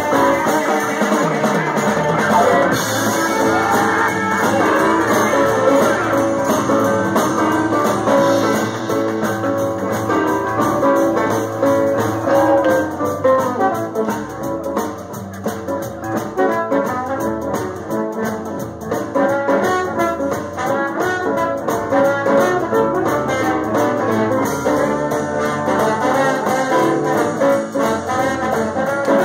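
Live blues-rock band playing an instrumental passage: electric guitars, bass, drums and piano, with a trombone playing out front.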